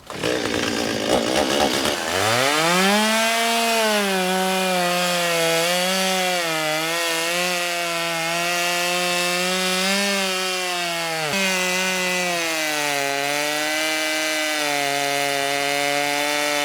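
Two-stroke chainsaw revs up sharply about two seconds in and then runs at high speed. Its pitch wavers and sags as the chain works through wood, with a brief sharp drop about eleven seconds in.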